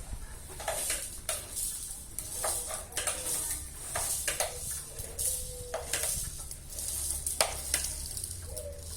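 Scattered light clicks and clinks, with a few faint, short cat mews.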